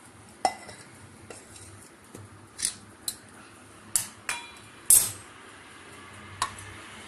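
Stainless steel coffee vessels clinking and knocking against each other and the counter, about seven sharp metallic clinks spread irregularly, the loudest about five seconds in.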